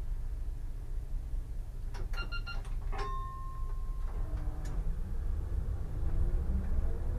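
Solaris Tramino S105p tram cab: a low running rumble, a short electronic chime about two seconds in and a steady beep of about a second just after. From about four seconds in, the traction motors' whine climbs steadily in pitch as the tram accelerates.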